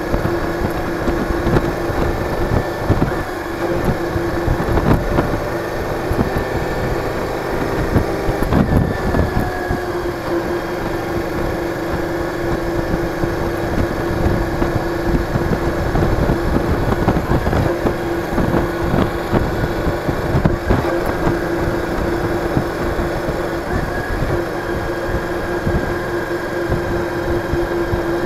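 Cruiser motorcycle's engine running while riding at a steady road speed, a constant engine hum over buffeting wind noise. The engine pitch dips briefly about nine seconds in, then holds steady again.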